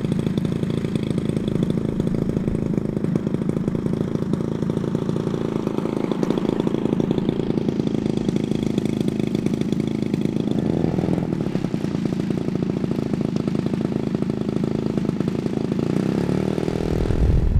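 Model aircraft engine, most likely an RC tow plane's, running steadily at idle, with a shift in pitch near the end.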